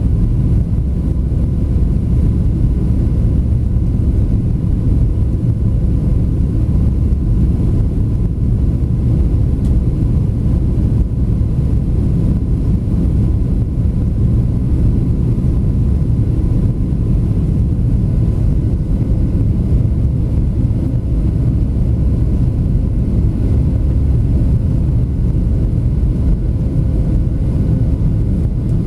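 Cabin noise inside a Boeing 737-700 in its climb: its CFM56 engines and the airflow make a steady, mostly low-pitched rush, with a faint steady hum on top.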